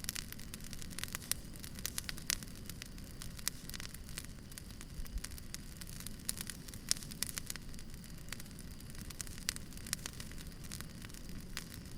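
Wood fire burning, with a steady low rush and frequent irregular crackles and pops from the burning logs.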